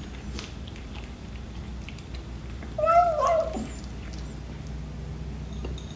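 British Shorthair kitten giving one short meow-like eating noise about three seconds in, rising then falling in pitch, with faint clicks around it.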